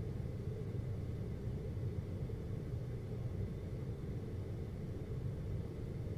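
Air conditioner running with a steady low hum and a faint airy hiss, unchanging throughout.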